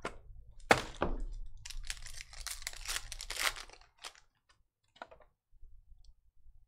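Two sharp knocks, then the foil wrapper of a Panini Spectra basketball card pack being torn open, crackling and crinkling for about two seconds, followed by a few faint ticks as the cards are slid out.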